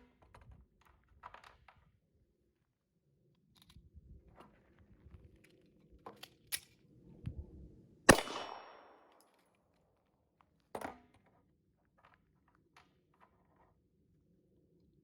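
A single 9mm Glock pistol shot about eight seconds in, with the slide locking back on the emptied Shield Arms S15 magazine. Before and after it come scattered clicks and clatter of the gun and magazine being handled.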